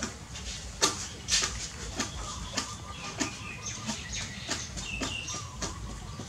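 Puppies suckling at their mother's teats: a run of short, wet sucking and smacking clicks, irregular at about two to three a second.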